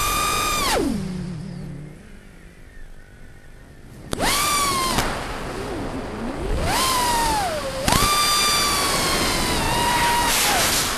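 FPV quadcopter's brushless motors and propellers whining, the pitch rising and falling with the throttle. It is high at the start, punches up again about four seconds in, rises and falls near seven seconds, and holds high from about eight seconds until it drops off near the end.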